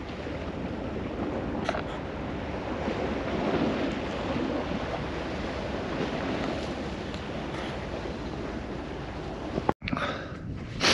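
Small waves washing against a rocky shore under wind rumbling on the microphone: a steady rushing noise that cuts out abruptly near the end.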